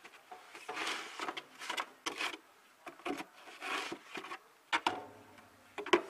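Snow being shovelled off a doorstep: several separate scraping scoops of the shovel through deep snow, then two sharp knocks near the end.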